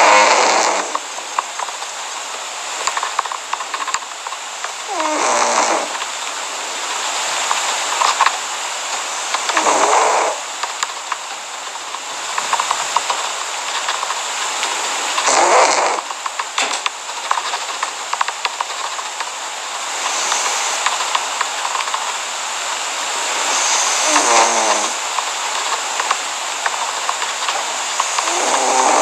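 Cat snoring loudly, one snore about every five seconds with one longer pause, over a steady hiss.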